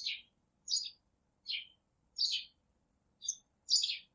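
A bird chirping: short, separate high-pitched chirps repeating about every three-quarters of a second.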